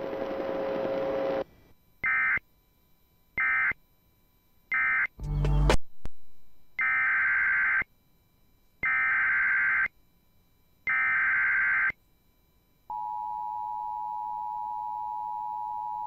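NOAA Weather Radio EAS tones: three short screeching SAME data bursts (the end-of-message code), a brief burst of static, then three longer one-second SAME header bursts opening the next alert, a flash flood warning. They are followed by the steady two-tone EAS attention signal.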